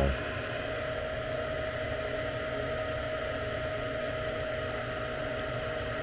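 Lennox gas furnace's draft inducer motor running with a steady hum and a faint steady whine, the furnace on a call for heat.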